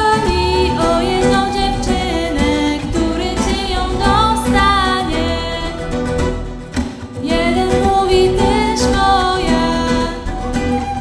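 Live folk music: a woman singing a song over acoustic guitars, with a large frame drum struck with a beater. The singing pauses briefly about six and a half seconds in, then carries on.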